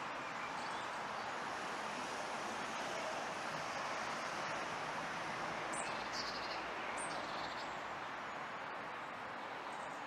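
A thrush gives two short high calls, about six and seven seconds in, over a steady rushing background noise.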